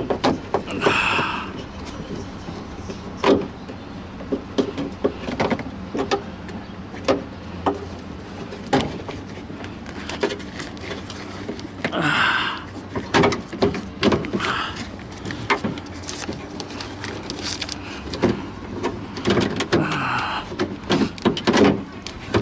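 Irregular clicks, taps and knocks of plastic clips and fittings being worked by hand in an open Toyota RAV4 door, with short scraping rustles about a second in, near the middle and near the end.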